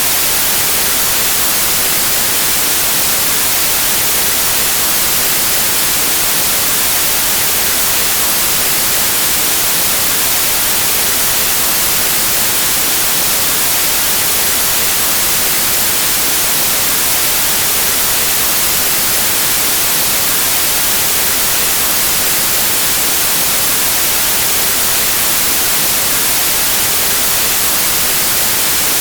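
Synthetic white noise: a steady, unchanging static hiss, brightest in the high treble.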